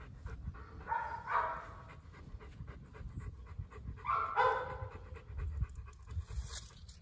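German shepherd puppy panting with its mouth open, with two short louder sounds about one and four seconds in.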